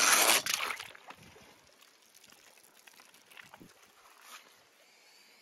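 A splash and rush of water as a toy drops into a small pool, dying away within about a second, followed by a few faint soft splashes and drips.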